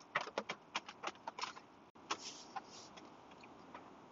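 Eating from a foil-lined freeze-dried meal pouch with a spoon: a quick, irregular run of small clicks and crinkles, then a brief soft rustle about two seconds in.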